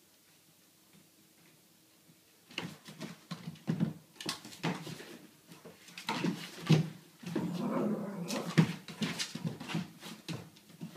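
Beagle puppy yipping and whining in a rapid string of short calls while it plays at the cat, starting about two and a half seconds in.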